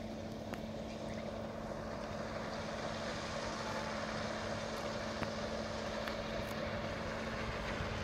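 Combine harvester running as it cuts and threshes wheat: a steady mechanical drone with a constant hum, growing slightly louder as the machine comes closer.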